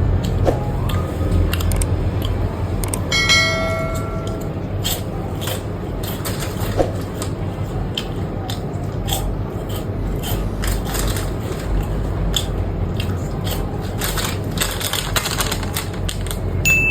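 Crunchy puffed snack rings being bitten and chewed close up, a run of irregular crisp crackles over a steady low background rumble. About three seconds in there is a brief high-pitched tone.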